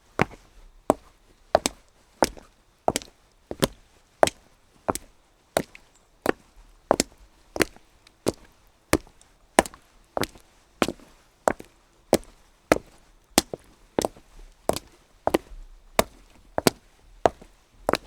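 Footsteps walking on wet cobblestones at a steady pace, about one and a half sharp heel-and-sole strikes a second.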